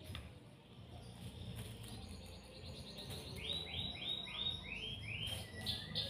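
A run of short, high, rising chirps from an unseen small animal, about three a second, growing louder through the second half, over a faint steady low hum.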